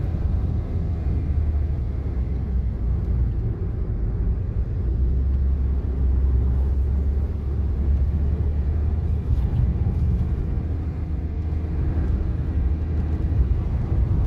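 Honda N-WGN kei car driving, its engine and tyre noise heard from inside the cabin as a steady low rumble that swells a little midway.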